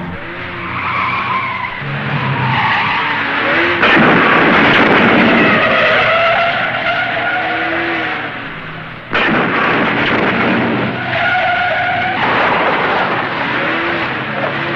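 Car tyres squealing in long, wavering skids over running engines, as in a movie car chase. The sound changes abruptly about 4, 9 and 12 seconds in, as separate skid takes are joined.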